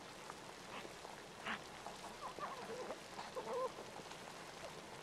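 River otter on the snow: a crunch about a second and a half in, then a run of short squeaky calls, all over a steady hiss.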